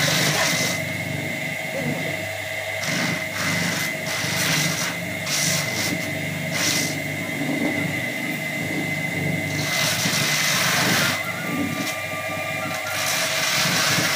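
Small electric maize sheller running: the motor and its spinning roller give a steady whine and hum while cobs are pressed against the roller, and the stripped kernels make a gritty, hissing rattle that comes and goes.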